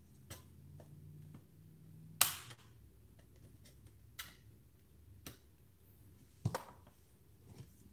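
Handling noise: scattered light clicks and taps as a hard device casing is handled, with a louder clack about two seconds in and another about six and a half seconds in. A faint low hum stops at the first loud clack.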